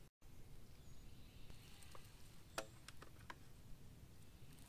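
Near silence: a faint steady background hiss, with a few soft clicks a little past halfway.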